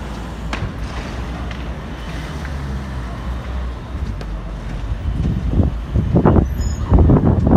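Steady low rumble with a few sharp cracks, then from about five seconds in, gusts of wind buffeting the microphone, growing loud near the end.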